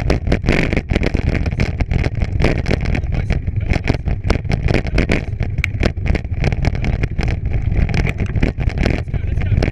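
Wind buffeting the microphone over the rattle and rumble of a bike rolling fast along a rough trail, with constant small jolts and no let-up.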